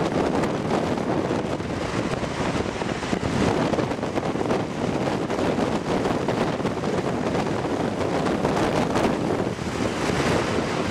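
Steady wind rushing over the microphone of a moving car, mixed with road noise.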